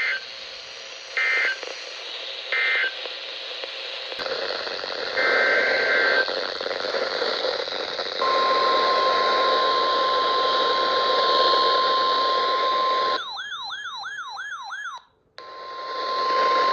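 NOAA Weather Radio alert signals received through a hissy receiver. Three short end-of-message data bursts close the previous warning, and a longer SAME header data burst follows. Then the steady 1050 Hz warning alarm tone sounds for about five seconds, breaks into a fast warbling tone for about two seconds, cuts out briefly and comes back steady near the end.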